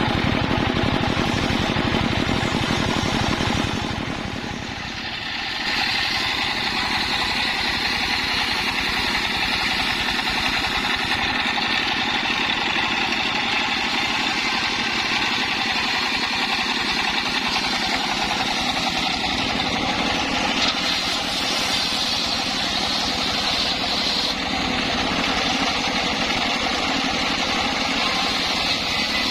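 Engine-driven homemade circular sawmill running steadily, its blade sawing through waru (sea hibiscus) wood. A brief drop about four seconds in, then a steady higher-pitched cutting whine sits over the engine.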